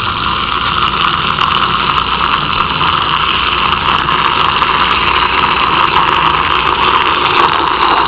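A motor running steadily with a loud, even whirring noise.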